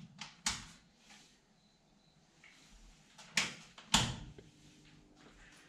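Small coolant pump taken from a parts washer running very quietly, under a few sharp knocks and clicks, the loudest about three and a half and four seconds in.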